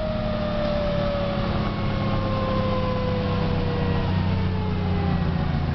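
Fire tanker's engine drone in the cab, with a Federal Q mechanical siren winding down, its tone falling slowly and steadily in pitch.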